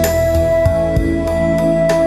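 Instrumental break in a gentle song: one long held note over a slow bass line, with light regular percussion ticks.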